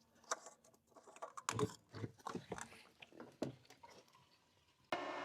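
Quiet, scattered clicks and knocks of hands handling a fuel can and filler cap while refuelling a mini skid steer. Near the end a steady mechanical hum starts abruptly.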